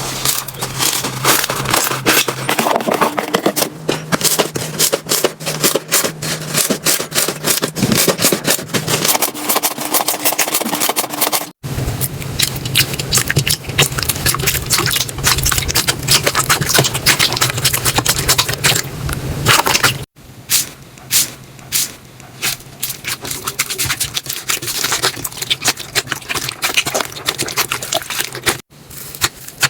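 Slime being squeezed and poked by hand, a dense run of small crackles, clicks and pops. The sound breaks off abruptly three times as one piece of slime gives way to the next.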